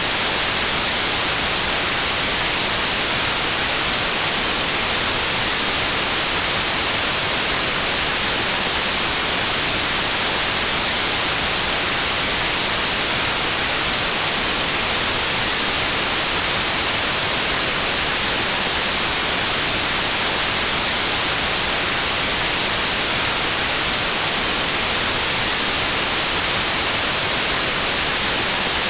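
Steady white noise: an even, unchanging hiss, strongest in the high range, with no separate sounds in it.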